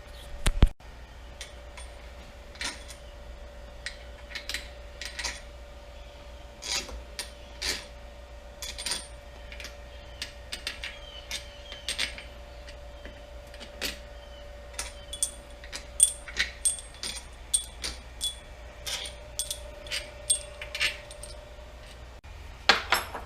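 Hand tools and metal engine parts clinking and tapping during a Polaris Sportsman 800 engine bottom-end teardown: many separate sharp clinks, several with a bright metallic ring, the loudest about half a second in. A faint steady hum runs underneath.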